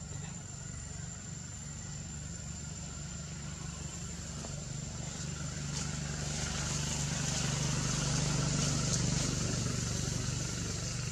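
Low engine hum of a motor vehicle running at a distance. It swells to its loudest a little past the middle and then eases slightly, with a thin, steady high whine above it.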